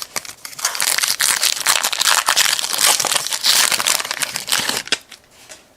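Crinkly plastic wrapper of a trading-card pack being handled and crumpled: a dense, loud crackling that stops about five seconds in.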